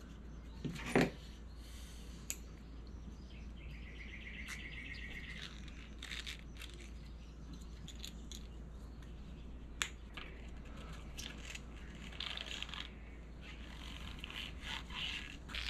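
Faint clicks and scrapes of hand tools and rubber tubing being handled on a wooden workbench, with a thump about a second in and a steady low hum underneath. A short bird trill comes a few seconds in.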